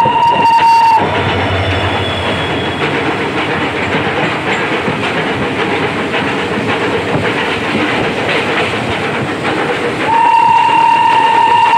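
Fairy Queen steam locomotive's whistle blowing a steady single note, which stops about a second in; the coach's wheels then rattle and clatter over the rails, and the whistle sounds again about ten seconds in.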